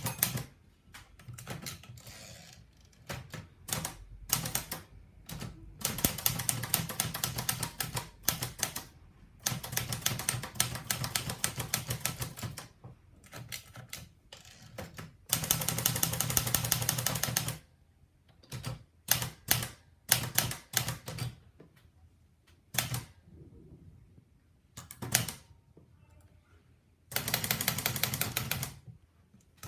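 Olivetti Lettera 35 manual portable typewriter being typed on: runs of rapid keystrokes a few seconds long, broken by short pauses and scattered single strokes.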